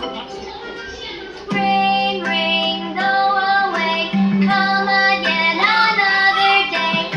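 Children's song: a child-like voice singing a melody over backing music, growing louder as the singing comes in about a second and a half in.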